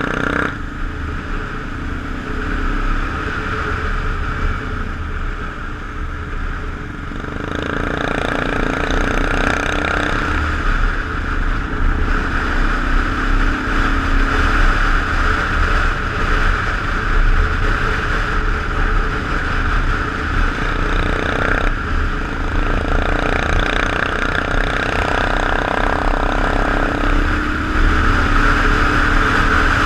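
Motorcycle exhaust while riding, heard over wind noise on the microphone, with a steady low rumble. The engine gets louder about a quarter of the way in and swells twice, once around a third of the way through and again past the middle.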